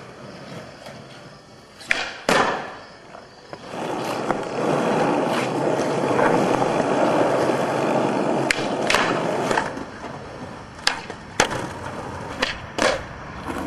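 Skateboard wheels rolling over rough asphalt. Sharp clacks of the board hitting the ground come twice about two seconds in and several more times in the last five seconds.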